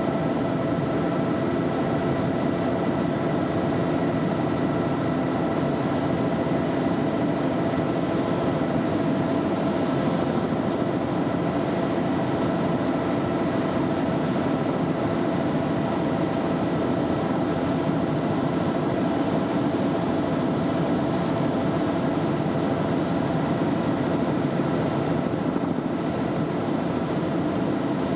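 Helicopter engine and rotor noise heard from inside the cabin in flight: a steady drone with constant high whining tones above it.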